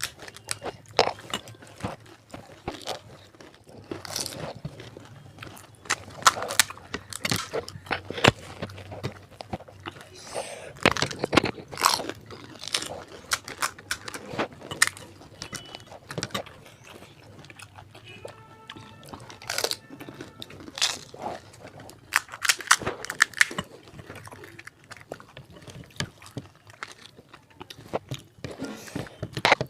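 Crisp fried fuchka (pani puri) shells being bitten and chewed, with many sharp, irregular crunches, over background music.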